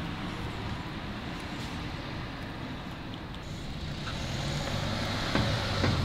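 Steady low rumble of distant road traffic, with two short sharp knocks near the end.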